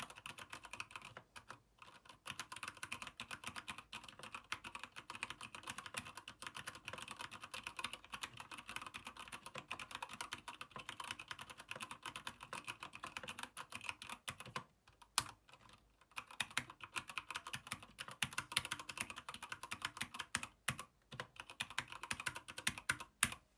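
Keychron K8 mechanical keyboard with Gateron brown switches being typed on fast, a steady stream of key clacks. It stops briefly about two thirds of the way through, then goes on with sparser strokes near the end.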